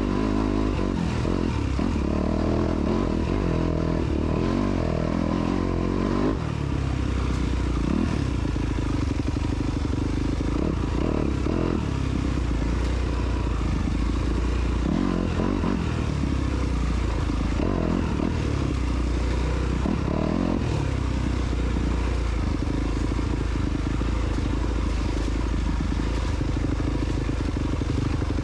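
Motorcycle engine running steadily while ridden, its pitch rising and falling with the throttle, with a brief drop in level about six seconds in.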